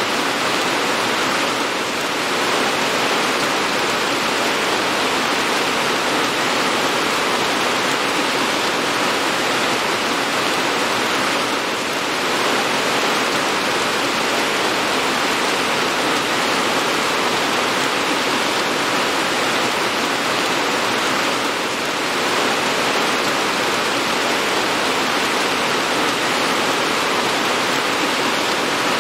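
Steady rain falling, an even hiss with no let-up, dipping slightly in level about every ten seconds.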